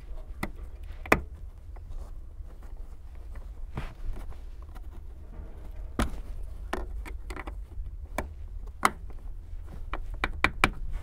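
Hard plastic seat trim of a Honda Accord being handled and clipped into place on the seat base: scattered clicks and knocks, the loudest about a second in and a quick cluster near the end, over a low steady rumble.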